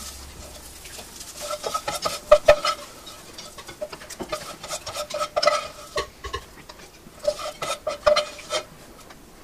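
A plastic spatula scraping and clicking against a nonstick frying pan and a plastic bowl as crumbled cooked sausage is scooped across, in three clusters of strokes.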